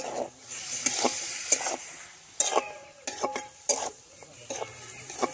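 Chicken pieces sizzling in hot oil and spice paste in a pot while being stirred, the stirring utensil scraping and knocking against the pot about eight times.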